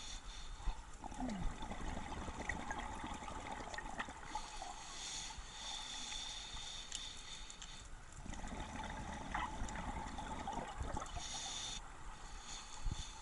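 Scuba regulator breathing underwater: a hiss on each inhale, and bubbling bursts of exhaled air about a second in and again from about eight to eleven seconds in.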